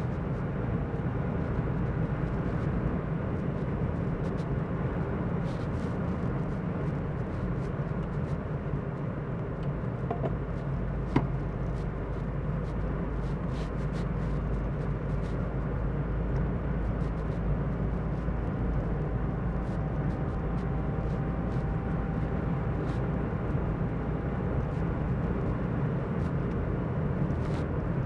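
Car driving at road speed: a steady rumble of tyre and wind noise, with a single sharp click about eleven seconds in.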